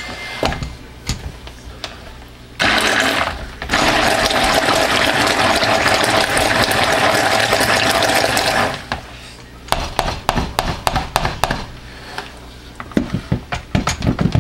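Immersion stick blender running in a container of thick soap batter, mixing it. It starts a few seconds in, runs steadily for about six seconds and stops, followed by a string of knocks and clicks.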